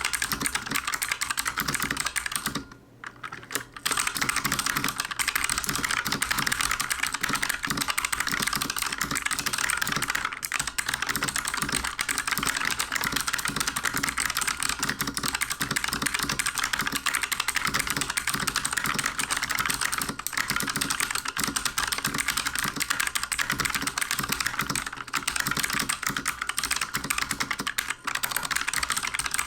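Fast continuous typing on a mechanical keyboard with Bloody Light Strike optical blue clicky switches, a dense stream of sharp clicks with a brief pause about three seconds in. The clicks are a little tinnier and clangier than Cherry MX Blues.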